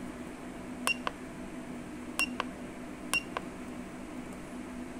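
Buttons on a ZEUS AutoScanner hand-held scan tool pressed three times, about a second apart, to scroll down its engine-data list. Each press is a pair of sharp clicks, the first with a brief high tone, over a steady low hum.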